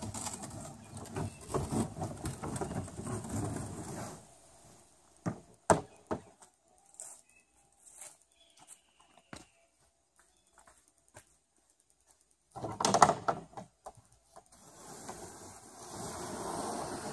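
Plastic kayak hull rolling over the PVC-pipe rollers of a wooden launch ramp, a rattling rumble for the first few seconds. Then come scattered knocks, a loud clatter about 13 seconds in, and the rumbling roll again near the end as the kayak runs on down the ramp.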